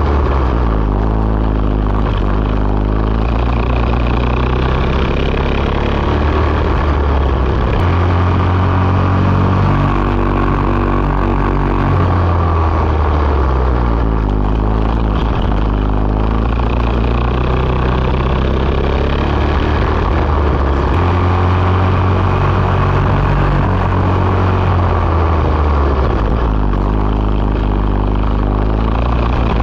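Racing kart engine heard from on board at race speed, its pitch climbing for several seconds on the straights and dropping back into the corners, again and again.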